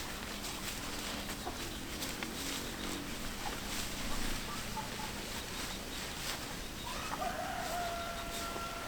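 A rooster crows once about seven seconds in: a short rise into a long, steady held note.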